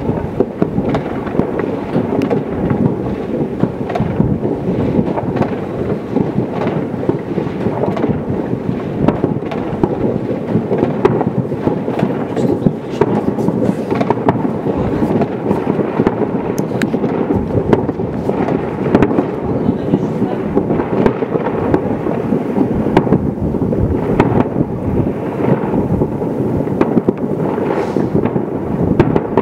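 Distant fireworks and firecrackers going off without a break, their many bangs merging into a steady rumble with sharper cracks scattered through it.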